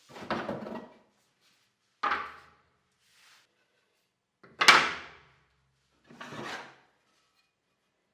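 Four separate clunks and short sliding knocks of wood being handled, with gaps between; the third, about four and a half seconds in, is the sharpest and loudest.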